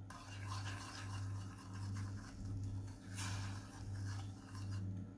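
Wooden spoon stirring sugar syrup in a stainless-steel saucepan, with soft rhythmic scraping against the pan, over a steady low hum that swells and dips.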